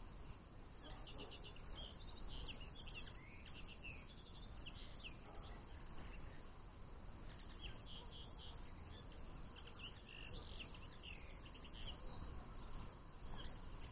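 Common linnets twittering in quick clusters of short chirps, faint, over a low steady rumble of wind noise.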